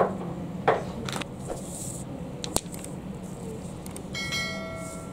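A few light clicks and knocks of small objects handled on a tabletop over a steady low hum. About four seconds in comes a short ringing chime.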